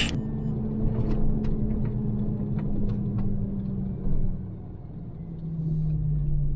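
Lorry's diesel engine running as the truck drives slowly, with a low rumble. About four seconds in there is a short knock, then the engine note drops to a lower, steady pitch as it slows.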